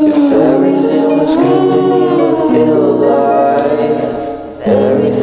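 Background music: layered singing voices holding sustained, gliding notes, dipping briefly about four and a half seconds in.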